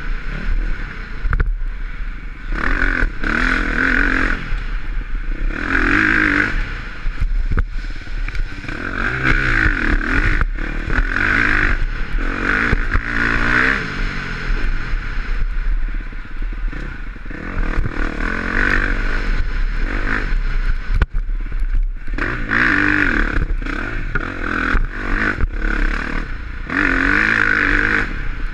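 2020 KTM 350 XC-F's single-cylinder four-stroke engine revving up and falling off again and again as the bike is ridden hard through the gears on a dirt trail. Knocks and clatter from the bike over the rough ground run under the engine.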